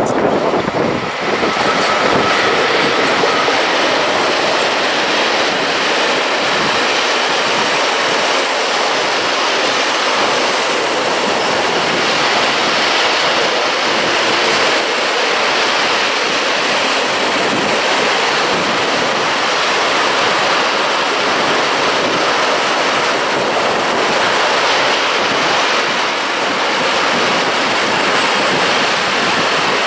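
Freight train rolling past close by: a steady, loud rush of wheel and rail noise from the wagons going by, unchanged throughout.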